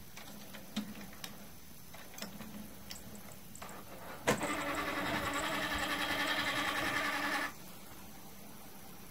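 Epson inkjet printer starting up: a sharp click, then its motor whirs steadily for about three seconds while the output tray slides out, and stops abruptly. A few faint ticks come before it.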